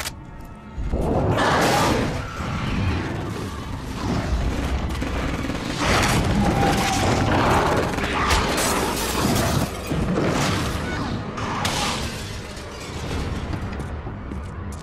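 Action film soundtrack: music mixed with loud crash and impact sound effects, coming in several noisy surges from about a second in, then easing toward the end.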